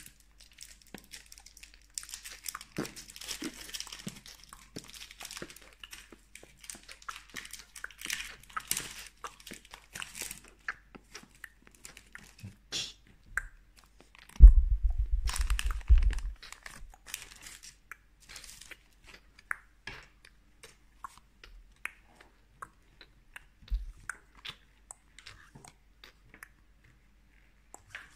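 Plastic and foil card packaging crinkling and rustling as it is opened and handled, with many small clicks. About halfway through there is a loud low rumble lasting about a second and a half, then only scattered light clicks of cards being handled.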